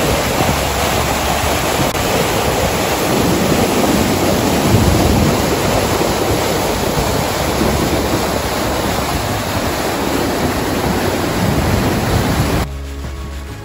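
Water gushing out of a concrete outlet channel and pouring into a lake as churning white water: a loud, steady rush that cuts off suddenly near the end.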